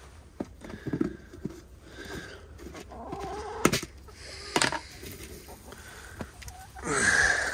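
Backyard hens clucking softly as they forage, with a couple of sharp clicks in the middle and a louder, noisier burst near the end.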